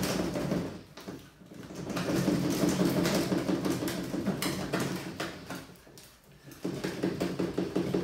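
Hive mould scraping and rattling against a workbench as it is rocked back and forth to free a cast concrete hive box, in three spells of rough rasping with short pauses between.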